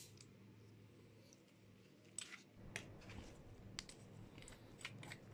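Faint clicks and taps of small metal parts as a PCP air rifle regulator is handled and unscrewed from its pressure-test gauge, scattered from about two seconds in over near silence.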